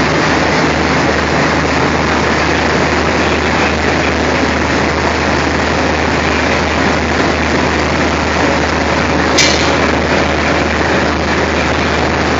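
Diesel locomotive engine idling close by with a steady low hum. A brief sharp high-pitched sound cuts in about nine seconds in.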